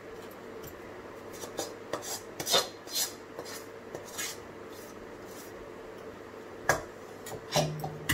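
A metal spoon scrapes and knocks against a steel kadhai in irregular strokes, working a sticky dry-fruit and sugar-syrup mixture out into a steel plate.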